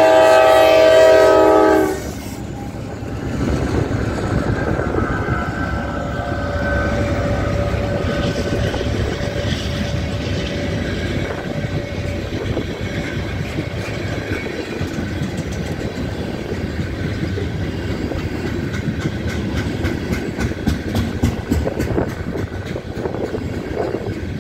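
Norfolk Southern diesel freight locomotive's air horn sounds a long chord that cuts off about two seconds in. The locomotives then run past, followed by loaded ethanol tank cars rolling by with their wheels clicking over the rail joints, the clicks sharpest near the end.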